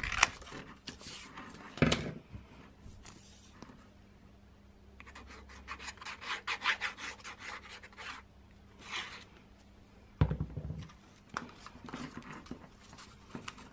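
Scissors snipping through cardboard, two sharp snips in the first two seconds, followed by cardboard being rubbed and handled against a table with a scratchy rustle and a low knock about ten seconds in.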